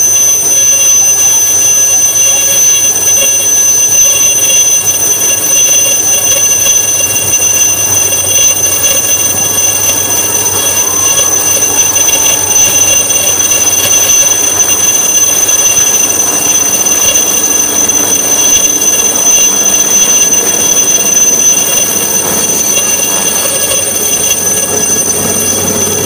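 Military light helicopter's turbine engine running with a steady high whine and its rotor turning, through lift-off and the climb away.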